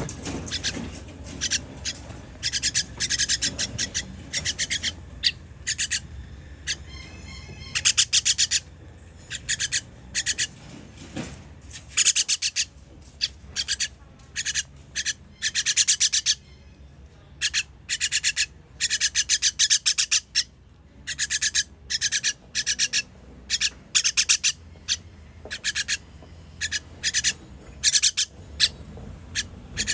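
Baby bird begging calls: rapid, raspy high-pitched chirps in short bursts, repeated over and over, as it begs to be fed.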